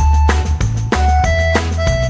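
Background music with a steady beat: drums about three times a second over a deep bass line and held melody notes.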